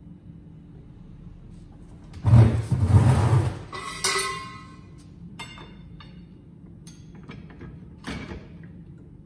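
Metal bars and rods rattling and scraping against each other in a metal bin as one is pulled out, then a ringing metallic clank about a second later, followed by a few light metal knocks.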